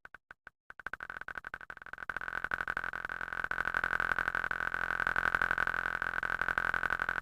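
A short fart sound effect repeated faster and faster, the separate blips running together after about two seconds into a continuous buzzing tone.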